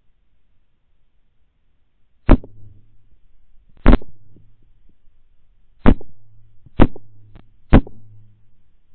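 Five rifle shots picked up by the thermal riflescope's built-in microphone, each a sharp, clipped crack. The first comes about two seconds in, and the last three come less than a second apart.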